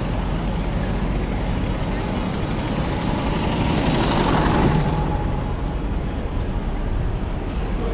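Busy city street traffic heard from a moving bicycle: a steady wash of engines and street noise, swelling about four seconds in as the bike passes close beside a tour bus.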